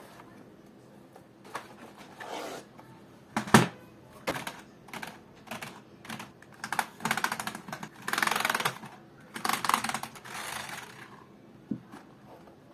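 Beyond BGK 3300 gaming keyboard being handled and typed on: scattered clicks and knocks, one sharp knock about three and a half seconds in, then bursts of rapid key clatter in the second half.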